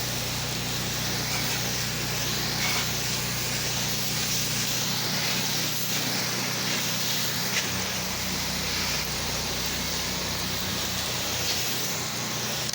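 Pressure washer running: a steady engine hum under a continuous hiss of water spraying from the wand.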